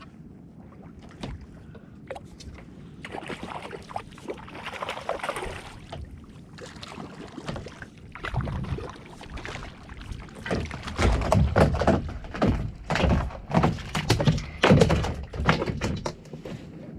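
Splashing and knocking against a kayak as a second hooked bonito is brought in, ending in a run of loud, irregular thumps about two a second near the end.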